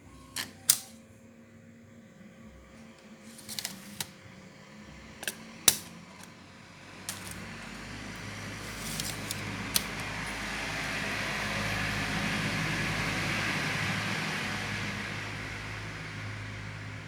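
Several sharp clicks, then a whirring noise with a low hum that swells over several seconds and eases back down.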